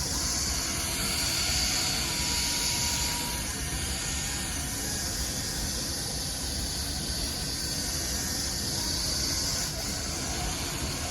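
Milwaukee M12 cordless buffer running steadily against a plastic headlight lens, a continuous hiss with a low rumble underneath.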